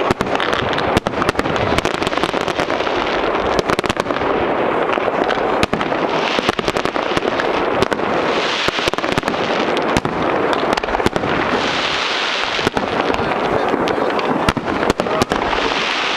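Fireworks display: a continuous barrage of shell bursts and crackling, with dense, rapid bangs throughout and swells of hissing crackle every few seconds.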